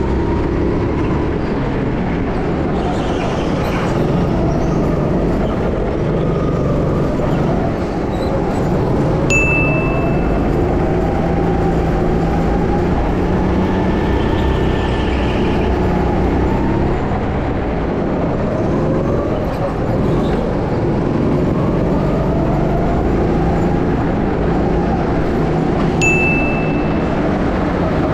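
Go-kart engines running on the track, their pitch rising and falling as the karts accelerate and lift off through the corners. Two short high beeps, about nine seconds in and near the end.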